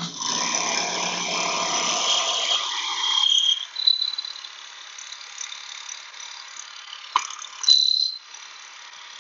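Shopsmith Mark V running with a hollow chisel mortising attachment, the auger bit spinning inside the chisel as it is pressed into wood with the stock quill handle. It is louder for the first three seconds, then settles to a steady high whine, with a short high squeal about four seconds in, a click, and a louder squeal near eight seconds.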